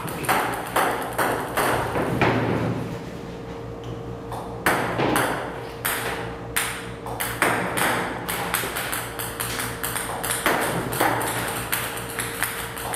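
Table tennis balls bouncing and clicking on a table tennis table, in runs of rapid sharp clicks with a lull about three seconds in, over a steady low hum.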